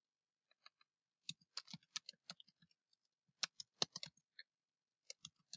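Faint computer keyboard typing: short runs of keystrokes with brief pauses between them.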